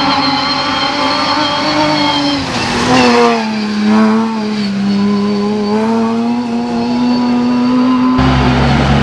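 Off-road rally car engines running hard on a dirt stage. The note is high and steady, dips sharply about three seconds in, then holds with small rises and falls. Near the end it cuts abruptly to a lower, rougher engine sound.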